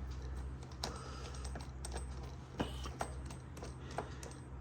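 Small metal parts clicking and clinking as they are handled, with about a dozen sharp separate ticks, while a rear brake clevis is fitted to a dirt bike's brake pushrod. A steady low hum runs underneath.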